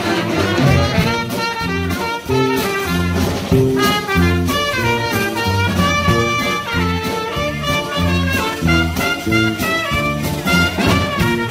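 A live big band playing a swing number: saxophone, trumpet and trombone over drums, with a steady beat.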